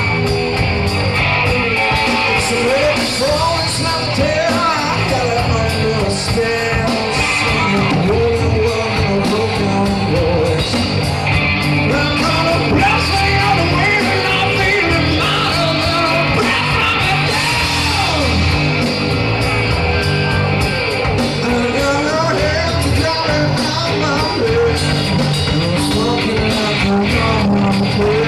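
Live rock band playing: a male singer's voice bending up and down in pitch over electric guitar and drums.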